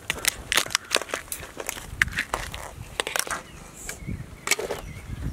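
Hard shells and legs of blue swimmer crabs clicking and cracking as they are handled and cleaned: a scatter of sharp, irregular clicks.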